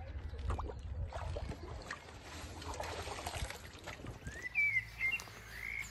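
Lake water sloshing and trickling as a carp is let go from a wet sling, with scattered knocks of handling. From about four seconds in, a bird sings a run of short whistled chirps that rise and fall.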